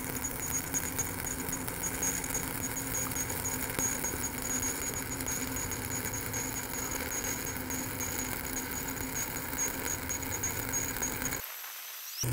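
Stick-welding (SMAW) arc from a 7018 electrode running a vertical-up cap bead on steel plate: a steady crackling sizzle. The sound breaks off about a second before the end.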